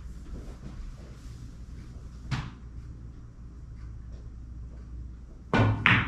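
A pool cue tip striking the cue ball, then the cue ball clacking hard into the object ball about a third of a second later, near the end. The shot is hit too hard. A single lighter click comes about two seconds in.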